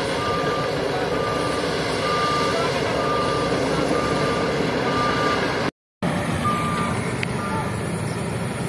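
Diesel engine of heavy earth-moving machinery running with a reversing alarm beeping, short single-pitch beeps about once a second. The sound breaks off for a moment about six seconds in, then the engine and beeping carry on.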